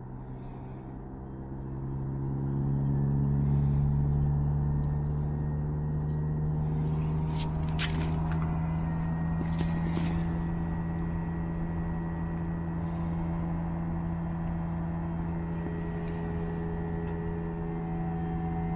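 Daikin multi inverter heat pump outdoor unit running its defrost cycle: the compressor hums steadily with several stacked tones and grows louder about two seconds in. A few short hissy bursts come about eight to ten seconds in, and the hum cuts off suddenly at the very end.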